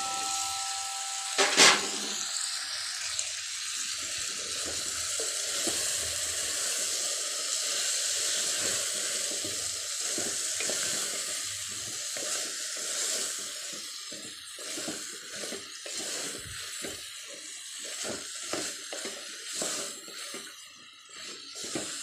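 Vegetables sizzling in hot oil in an aluminium pressure cooker, with one sharp knock about a second and a half in as a handful of cauliflower florets drops in. In the second half the sizzle fades under a spoon scraping and knocking as the vegetables are stirred against the pot.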